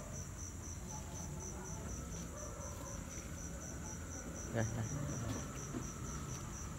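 Insect chirping steadily, a high pulsed call repeating about four times a second, with a brief soft knock about four and a half seconds in.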